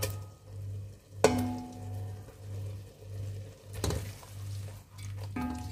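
A black slotted spoon stirs fried onions into tomato masala in a metal pot, with a few sharp knocks of the spoon. Two of them, about a second in and near the end, ring like a clink on the pot or plate. A low, evenly pulsing hum runs underneath.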